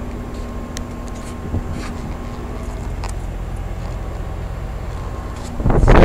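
York Affinity Series 3S heat pumps running in cooling mode: a steady hum from the compressor and condenser fan, with a few thin steady tones. Near the end a loud rush of air on the microphone cuts in.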